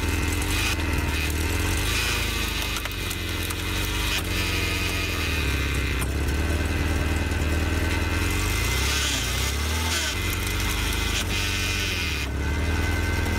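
Engine of a powered log splitter running steadily under a cross-shaped splitting wedge, with a brief drop and recovery in pitch about nine seconds in as it takes load. A few sharp knocks come through the drone.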